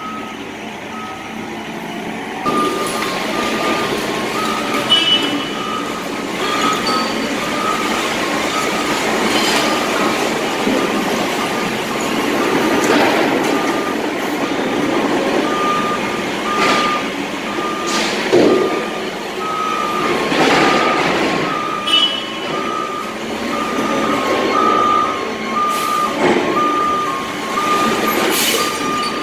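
Heavy machinery on a garbage transfer floor: reversing alarms beep over and over, at times two alarms at slightly different pitches, above the steady noise of a garbage truck and loader running. Scattered clanks and bangs, about one every couple of seconds toward the end.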